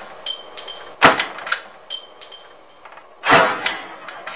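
Clear plastic freezer compartment door being swung and knocked against its frame, with two sharp knocks about a second in and at three seconds, and lighter plastic clicks around them.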